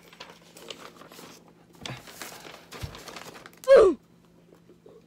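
Sheets of lined notebook paper rustling and crinkling as hand-drawn signs are handled and held up. About three-quarters of the way in comes a short vocal sound that falls in pitch, like a sigh or 'mm'.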